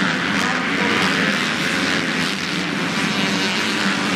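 MX1 motocross bikes racing on the track, several engines running at high revs at once in a steady, layered drone.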